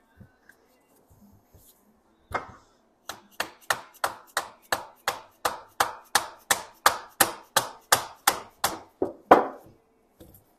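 A mallet strikes an aluminium alternator housing over and over, knocking the two halves apart once the through-bolts are out. There is one blow, then a quick run of about twenty steady blows, about three a second, that get harder and end with the loudest one.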